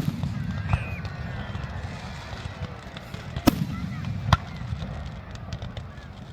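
Fireworks going off: a few sharp bangs, the loudest about three and a half seconds in, over the low murmur of a watching crowd.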